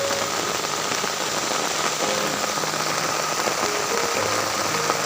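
Heavy rain falling onto a pond's surface: a steady, even hiss of rainfall.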